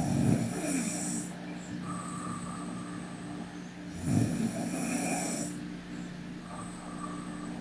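A sleeping person snoring: two snores about four seconds apart, each lasting a second or so, over a steady background hum.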